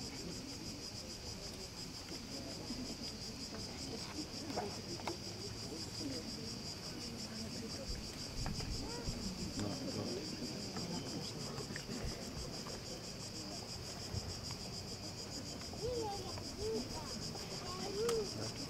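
Steady high-pitched insect chorus, trilling with a fast even pulse, over a faint low background murmur, with a few faint distant voices near the end.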